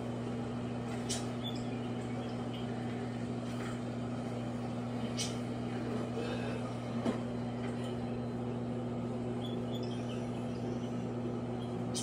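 Microwave oven running with Vaseline heating inside: a steady low hum, with three faint clicks spread through it.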